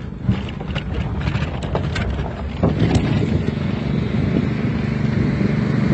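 A car driving over rough ground, its engine running, with scattered knocks and clicks from the bumping in the first few seconds and wind on the microphone. A steadier low engine hum grows louder from about three seconds in.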